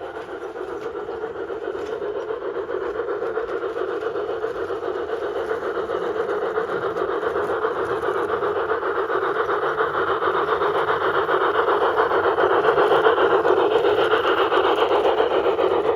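LGB G-scale model train running along the track, a steady whirr of its electric motor and wheels that grows louder until about three-quarters of the way through, then eases off slightly as it passes.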